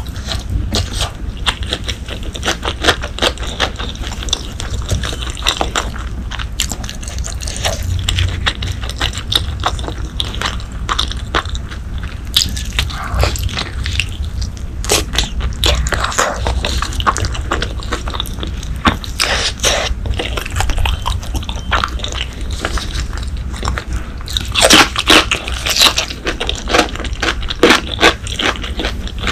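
Close-miked chewing and biting of braised pork leg: irregular wet mouth clicks and smacks, with louder bursts of chewing several times.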